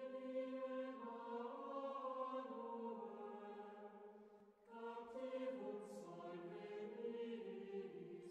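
Intro music of a choir singing slow, sustained chant-like notes, with a short dip about four and a half seconds in before the next phrase begins.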